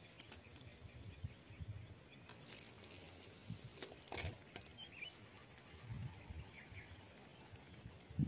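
Faint outdoor background with low rumbling wind gusts on the microphone and a few small clicks. There is one sharp knock about four seconds in, as a hand handles the camera.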